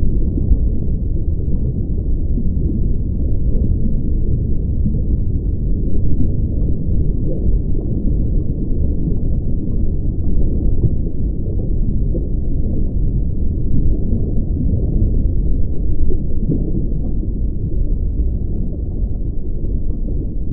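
Muffled, steady low rumble of water picked up by a camera held underwater, with nothing clear above it; it grows slightly fainter near the end.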